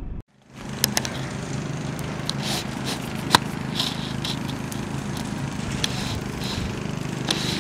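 Small fire of dry twigs crackling, with sharp irregular pops and snaps over a steady low hum.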